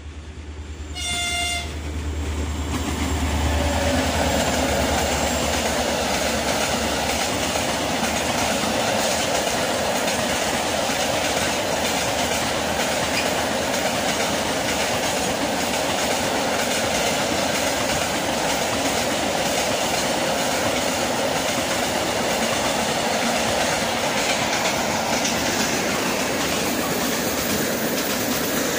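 A locomotive gives one short horn blast about a second in. A long freight train of open gondola wagons then passes close by, its wheels making a loud, steady running noise on the rails.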